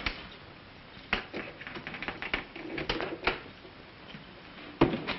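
Light clicks and knocks of a travel trunk being opened and its contents handled: a scattered run of taps in the middle and a sharper knock near the end.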